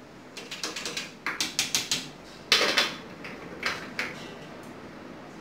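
Metal clicks and clanks of hands working on a stopped generator engine's fittings and throttle lever: a quick run of small clicks, one louder clatter, then two single knocks. The engine is not running yet.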